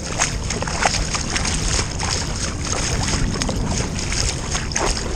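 Water sloshing and lapping against a kayak hull as it moves through shallow water, with a few small splashes and drips over a steady low rumble.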